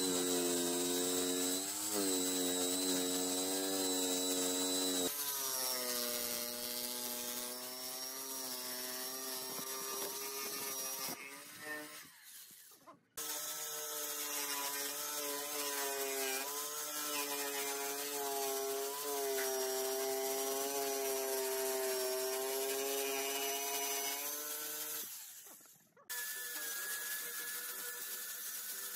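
Makita jigsaw running and cutting through a thick wooden block, its motor whine wavering a little as the blade works through the wood. The sound cuts off briefly twice, and near the end an angle grinder with a sanding pad runs on the wood with a steadier whine.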